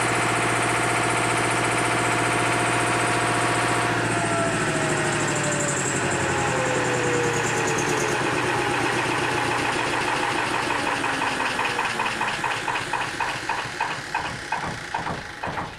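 Engine-driven generator running steadily, then shut off about four seconds in: its pitch falls as it coasts down, the beats slowing into separate thumps toward the end as it runs to a stop.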